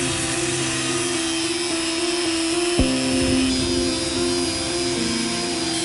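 Grinder's abrasive wheel grinding a small steel camshaft held in a vise: a steady hiss with a thin high whine. Soft background piano music plays under it, changing chord about three seconds in.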